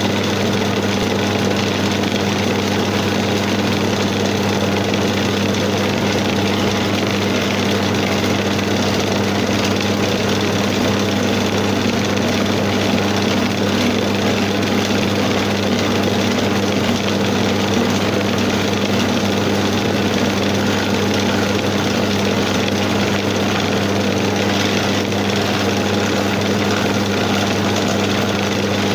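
Homemade wood lathe running: its electric motor hums steadily while a hand chisel held against the spinning wooden workpiece cuts into it, a dense continuous noise over the hum.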